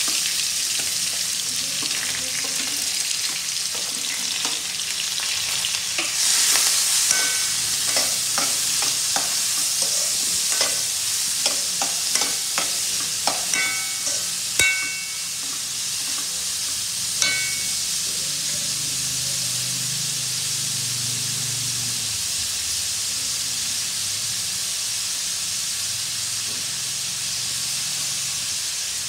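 Freshly added chopped onions sizzling in hot oil in a kadai, tempered with mustard seeds and cumin, a steady frying hiss. From about six to seventeen seconds in, a metal spoon stirring them clicks and clinks against the pan a dozen or so times.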